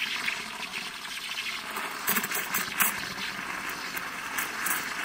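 Espresso machine's cappuccino steam wand blowing steam into a glass of chocolate milk: a steady hiss with several short louder spurts, as the milk heats and froths.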